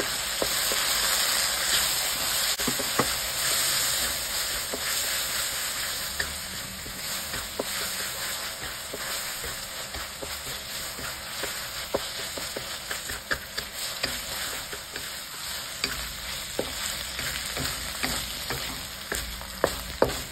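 Chicken pieces sizzling in a hot wok, with the seasoning sauce just added, while a wooden spatula stirs and scrapes them through. The sizzle is loudest at first and then dies down. Scattered taps of the spatula on the pan come several close together near the end.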